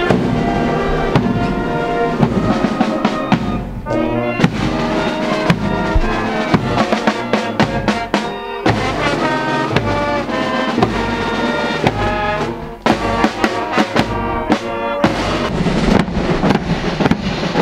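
Brass band music: trumpets and trombones playing a tune over regular drum beats.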